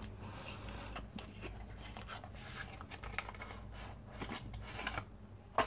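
Faint scraping and rustling of a stack of trading cards being slid out of its opened cardboard pack box, with one short sharp tap near the end.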